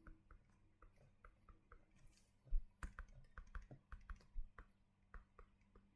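Light, irregular clicks and taps of a stylus on a drawing tablet while writing. The clicks come faster and louder from about halfway through.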